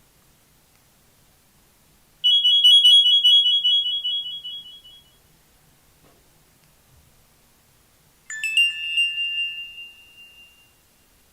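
Two short electronic alert tones from a Nokia 6500 classic mobile phone. About two seconds in, a high ringing tone sounds and fades out over about three seconds; about eight seconds in, a quick chirp leads into a second, slightly lower ringing tone that fades over about two seconds.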